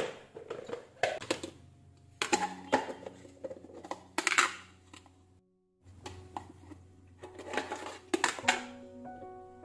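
Plastic food-storage containers being handled on a kitchen counter: repeated sharp clicks, knocks and rustles of the boxes and their lids, over soft background music.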